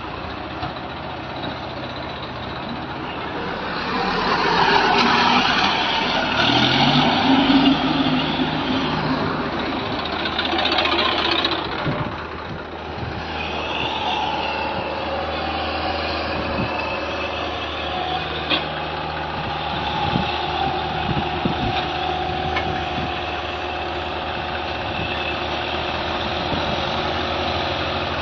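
Diesel engines of a Massey Ferguson 1035 DI tractor and a tracked excavator running steadily while they work, louder for several seconds from about 4 s in.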